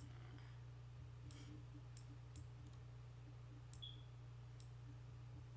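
Faint computer mouse clicks, about five spread over a few seconds, over a steady low hum.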